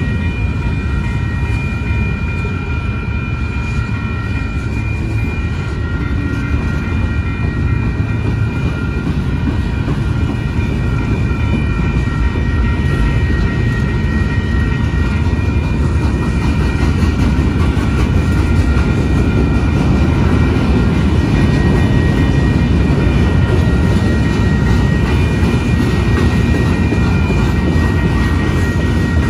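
Loaded freight cars of a Union Pacific manifest train (boxcars, tank cars, covered hoppers) rolling past at close range: a steady deep rumble of steel wheels on the rails. Several thin, steady high tones sit above it, and the rumble grows slightly louder in the second half.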